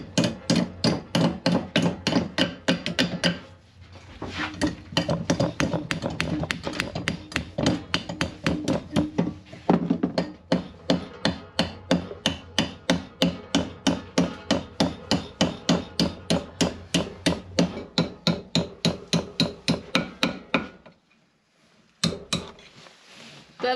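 Hand hammer striking metal fastenings in an old wooden boat timber clamped in a bench vice, to work them out. The blows come steadily at about three a second, each with a short metallic ring. They pause briefly about three and a half seconds in and stop a few seconds before the end.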